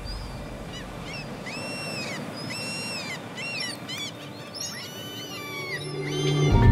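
Gulls calling: repeated cries, some drawn out and arching in pitch, others short and quick, over a steady wash of sea surf.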